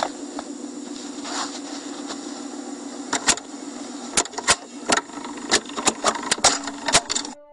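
A dozen or so sharp clicks of a computer mouse at irregular intervals, starting about three seconds in, over a steady electrical hum picked up by the recording microphone. The hum and clicks cut off abruptly just before the end.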